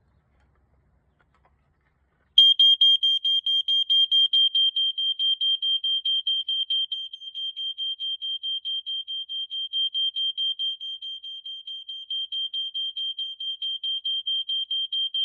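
Code One 2000 smoke alarm sounding on test: after a couple of seconds of quiet, a loud, high, piercing tone starts, pulsing rapidly at about four beeps a second and keeping on steadily.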